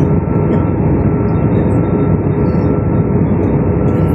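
Steady airliner cabin noise in flight: a constant low drone of the jet engines and rushing air, with a faint steady hum on top, heard from inside the cabin.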